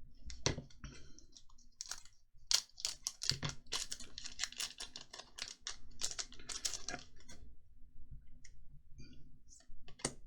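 Digimon trading cards being handled and flicked through by hand, a quick run of small sharp card clicks, thickest in the middle and thinning out toward the end.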